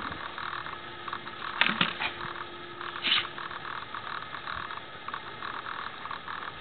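An ageing camcorder's own mechanical noise: a faint steady hum with hiss. Two brief louder sounds come about a second and a half in and about three seconds in.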